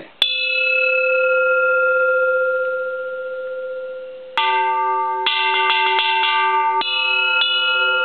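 Japanese bronze Buddhist temple bell struck once and left ringing with a long, slowly fading tone. About four seconds in it is struck again, then tapped quickly about half a dozen times, with two more strikes near the end, and the ringing overlaps throughout.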